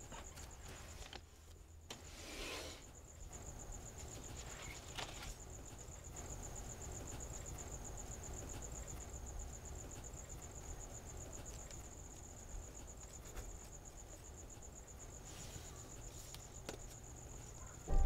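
Crickets chirping in a steady, fast high trill over a low hum, with a few soft scratches of a pencil on paper.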